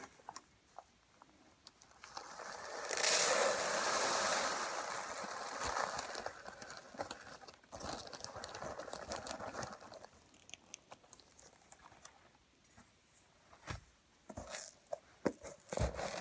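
Foley rain effect being made by hand: a hiss of fine patter swells in about two seconds in, is loudest for a couple of seconds, then thins out, leaving scattered ticks and clicks.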